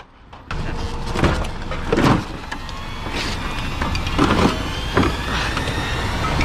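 Steady vehicle running noise with a low rumble, broken by several short sharp knocks.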